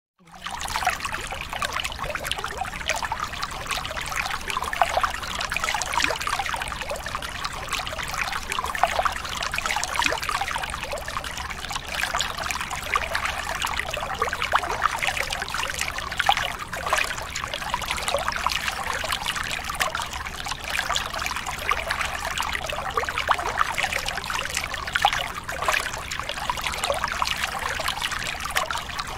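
Water trickling steadily: a continuous, even wash of running water full of small splashes and drips.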